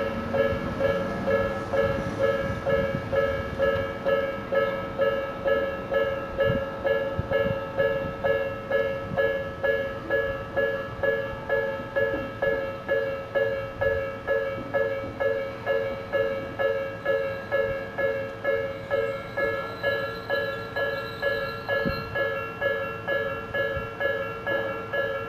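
Japanese railway level-crossing alarm on the Tobu Kameido Line ringing its electronic "Nikko-type" bell tone, an even ding repeating about twice a second. Its alarm speakers sound noticeably out of step with one another, which gives it an eerie quality.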